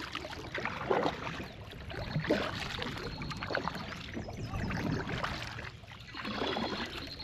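Water splashing and lapping around a fishing kayak on a lake, in irregular splashes and rustles.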